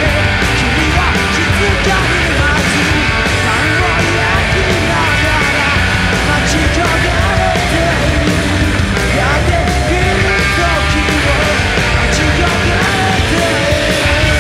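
Loud punk rock played by a live band, with electric bass and drums hammering away at an even, unbroken volume.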